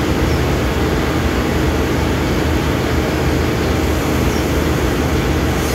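Diesel railcar train's engines running steadily at the platform, a continuous low hum.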